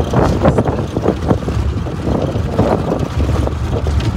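A classic Land Rover driving over a rough, rocky track, heard from inside the cab. A steady low engine drone runs under irregular rattles and knocks from the body as it jolts over stones.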